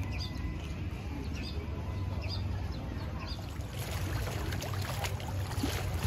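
Wind rumbling on the microphone at the waterfront, with a small bird chirping over and over, about twice a second, through the first half. In the second half a hiss of lapping water comes in.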